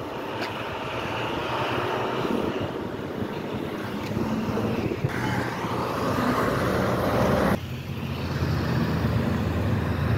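Street traffic at close range: a truck and a school bus driving past, their engines giving a low hum under tyre and road noise. The level drops abruptly about seven and a half seconds in, and the low engine hum is strongest after that.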